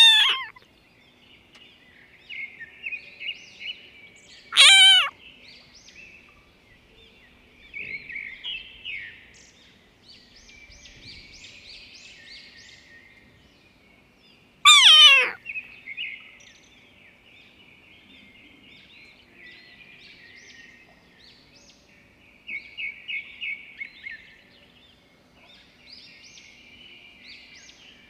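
A kitten mewing loudly twice in short, high-pitched cries, about five seconds in and again around fifteen seconds, while small birds chirp repeatedly in the background.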